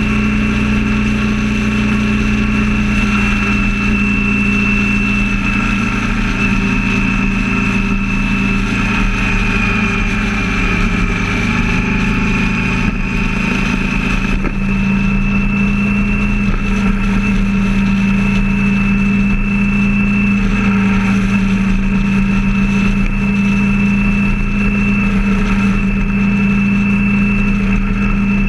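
Vehicle cruising at steady highway speed: a constant engine drone with road and wind noise, plus a steady high-pitched whistle.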